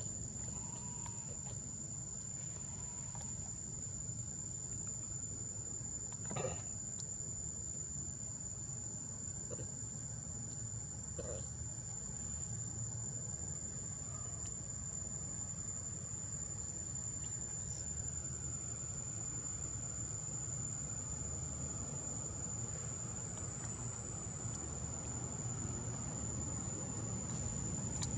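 Steady high-pitched insect drone, one unbroken tone, over a low background rumble that grows a little louder near the end; a short knock about six and a half seconds in.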